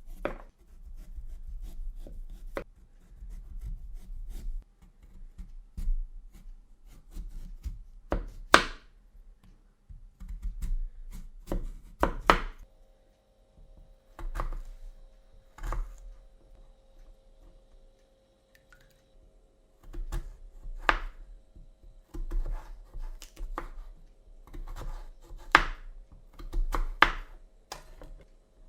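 Kitchen knife chopping food on a cutting board: irregular clusters of knocks with pauses between, a few strokes much louder than the rest.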